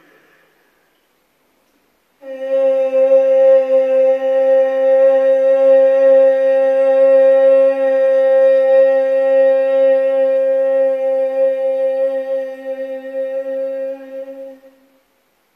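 A woman's voice chanting one long, open 'ah' vowel, held on a single steady pitch. It starts about two seconds in, lasts some thirteen seconds, and fades out near the end.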